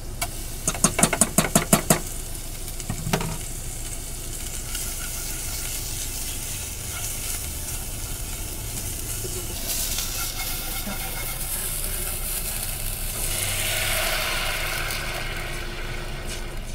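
A spoon clicks rapidly against a small container as chopped onion and garlic in olive oil are scraped into a frying pan, then a single knock. After that comes a steady sizzle of the onion and garlic frying, with a swell of running tap water near the end.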